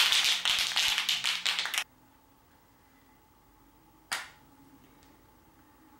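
An aerosol can of self-priming roll bar and chassis paint being shaken hard, its mixing ball rattling in quick irregular strokes; the shaking stops about two seconds in. A single short sharp sound about four seconds in.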